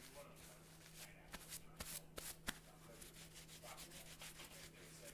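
Near silence with faint rubbing and rustling and a few soft taps in the first half.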